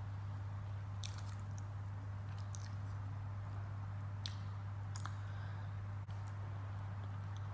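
Eating poori and potato curry by hand: fingers tearing poori and squishing it through the curry, then a bite taken and chewing, heard as scattered short wet clicks and squelches over a steady low hum.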